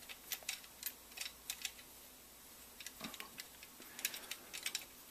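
Light, irregular clicks and ticks of an UltiMAK ACR-SS handguard rail and its mounting bracket being handled and fitted onto an AK by hand, with a short pause about two seconds in.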